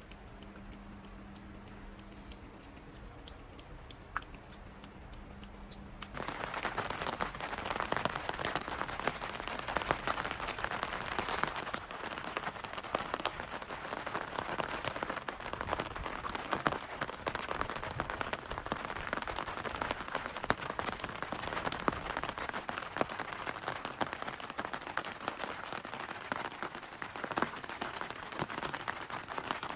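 Rain falling steadily, a dense hiss of many drops ticking close by. For the first six seconds there is only a faint steady hum with a few scattered drops, then the loud rain cuts in suddenly.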